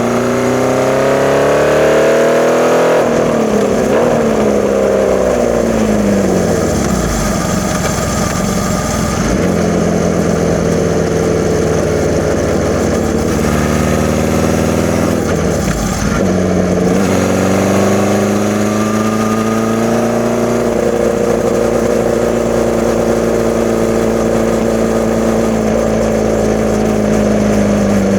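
1981 Honda CB650's air-cooled inline-four engine running through a Hindle 4-2-1 exhaust while being ridden. Its pitch climbs, falls away a few seconds in, rises again past the middle, then holds steady at cruise. The bike has freshly fitted Mikuni VM34 carbs, which the owner says have it running the best it ever has.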